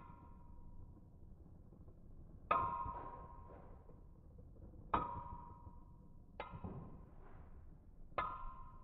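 Two spinning Beyblade Metal Fusion tops, Dark Wolf and Earth Aquila, clash four times. Each hit is a sharp metallic clink of the metal fusion wheels that rings briefly, over faint steady spinning noise.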